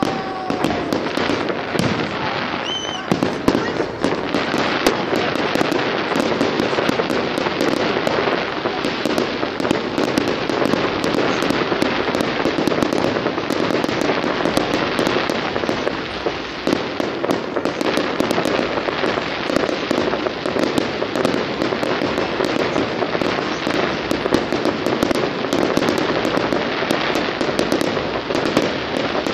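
Fireworks display: aerial shells launching and bursting in rapid succession, a dense, unbroken barrage of bangs and crackling.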